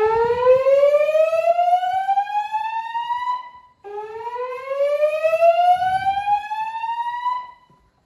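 Gentex fire alarm speaker strobes sounding the slow whoop evacuation tone of a Notifier voice evacuation system: two rising sweeps, each climbing steadily in pitch for about three and a half seconds, with a brief break between them. The tone is the fire alarm's evacuation signal and alternates with the spoken evacuation message.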